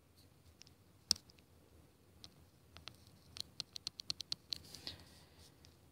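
Faint taps and scratches of a stylus on a tablet screen during handwriting: one sharp tap about a second in, then a quick run of light ticks a little past the middle.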